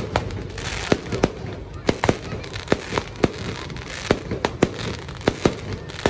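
Aerial fireworks bursting in quick, irregular succession, about two to three sharp bangs a second, over a steady background rumble.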